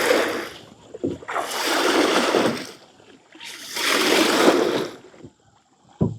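Water splashing in three long surges about two seconds apart.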